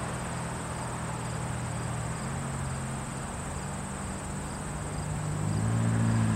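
Insects trilling steadily at a high pitch, with a fainter pulse about twice a second, over a low diesel engine drone that shifts in pitch and grows louder near the end: the locomotives of an approaching freight train.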